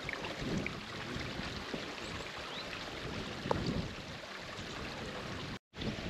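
Brook running steadily over stones, with wind gusting on the microphone in low swells.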